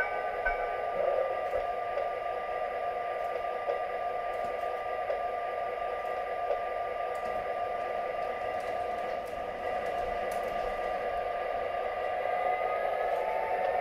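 O-gauge model passenger train running on three-rail track: a steady electric hum and whine from the running train, with a few light clicks as the wheels roll over the rail joints.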